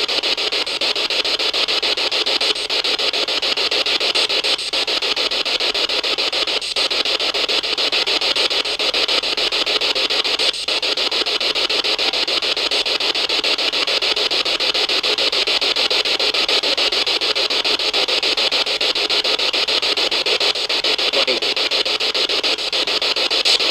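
Steady radio static hiss with a fine rapid flutter, typical of an SB7 spirit box sweeping through radio stations, with a few brief dropouts in the first half.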